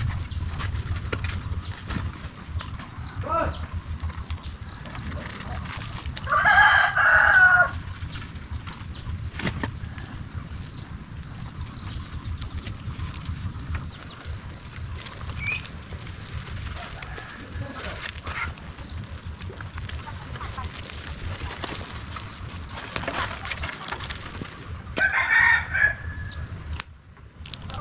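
A rooster crows twice, about seven seconds in and again near the end, each crow lasting about a second. A steady high-pitched insect buzz runs underneath.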